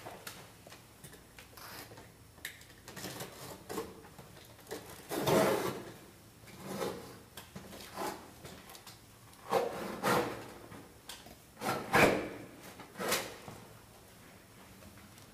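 Large framed paintings being handled and shifted against one another: a string of irregular short scrapes and knocks, one or two seconds apart, the loudest about five seconds in and again about twelve seconds in.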